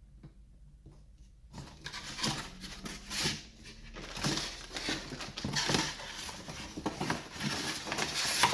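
Packaging rustling and crinkling in irregular bursts as the contents are pulled out of the box, starting about a second and a half in.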